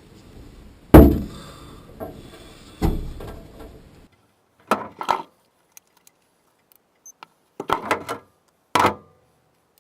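Handling knocks from repair work on an HVAC unit: a loud knock about a second in, a second knock about two seconds later, then a few short clatters.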